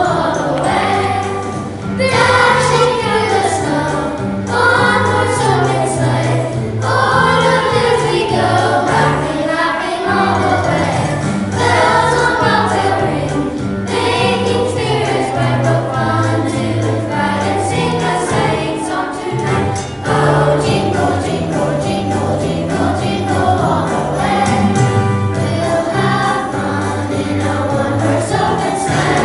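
A choir singing a holiday song over instrumental backing with jingle bells and a walking bass line.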